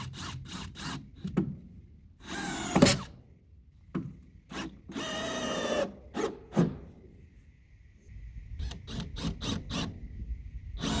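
Power drill running in two short bursts of about a second each, with clusters of sharp knocks in between and a quick run of them near the end.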